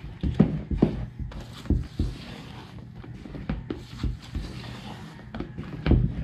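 Spatula folding thick meringue batter in a large stainless-steel bowl: irregular soft thumps, scrapes and knocks of the spatula against the bowl, loudest about half a second in and again near the end.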